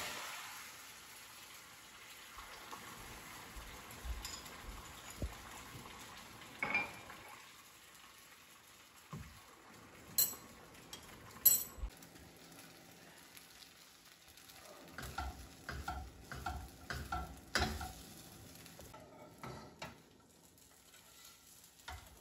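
Beaten eggs sizzling as they scramble in a frying pan over a gas burner, with a spatula stirring and scraping through them. Two sharp knocks come about halfway through, and a run of smaller taps and thumps follows a few seconds later.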